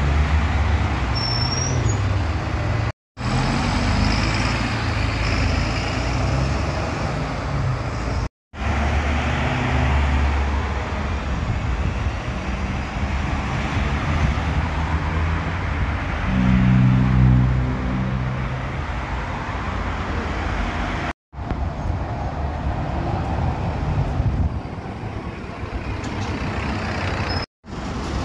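City buses and road traffic: bus engines running and pulling past amid passing cars, with an engine growing louder around the middle. The sound breaks off four times in short silent gaps where separate clips are joined.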